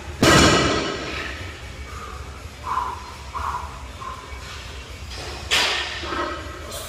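A 405-pound loaded barbell set down hard on the gym floor between deadlift reps. There is a heavy slam of the plates just after the start and another about five and a half seconds in.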